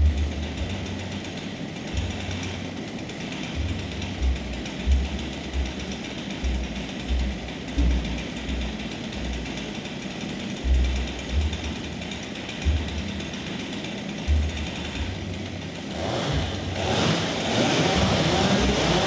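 Several chainsaws idling together, a steady mechanical din with irregular low thumps. About three-quarters of the way in the sound grows louder and fuller.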